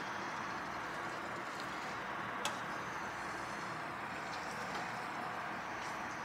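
Butter and olive oil sizzling steadily in a frying pan as a seasoned salmon fillet is laid in, with one light tap about two and a half seconds in.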